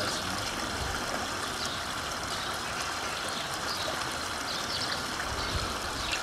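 Water running steadily, an even rush without breaks.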